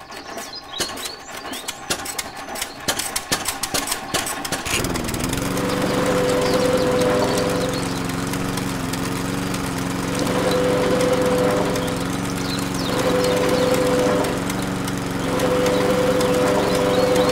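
Miniature belt-driven sugarcane roller juicer and its toy engine drive. A rapid clatter of clicks gives way about five seconds in to a steady engine-like hum. A louder whine then comes and goes several times while cane is fed through the rollers.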